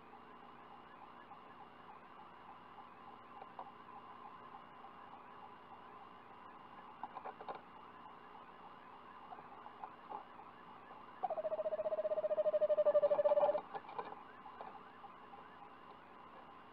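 Eastern screech owl trill: one pulsed, steady-pitched call of about two seconds, starting slightly higher and dropping at once, about eleven seconds in. A few faint scratches come before it.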